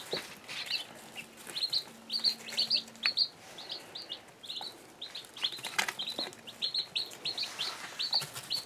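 Young chicks peeping, many short high peeps several times a second, with a few light taps.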